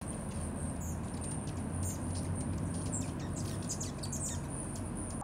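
Hummingbirds at feeders chittering, with many quick, high, short chips close together, over a steady low hum and a thin steady high tone.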